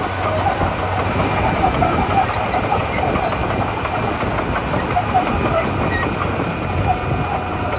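Komatsu D41P crawler bulldozer's diesel engine running steadily under a dense, continuous clatter of steel tracks and gravel.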